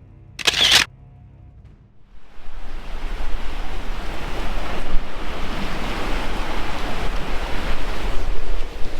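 Soft background music with a brief loud burst about half a second in, like the camera-shutter burst just before it. From about two seconds in, a steady loud rush of wind and sea noise on an open ship deck.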